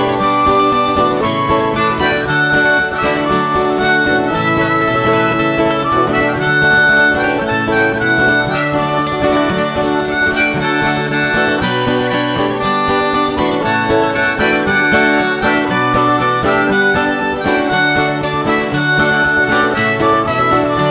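Instrumental break of a song: a lead melody of held notes over a steady backing, with no singing.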